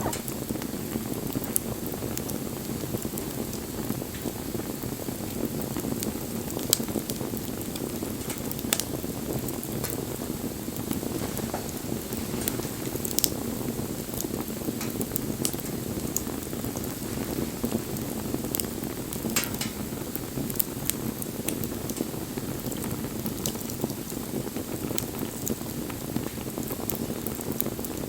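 Wood fire burning with a steady dense crackle and occasional sharp pops from the burning wood.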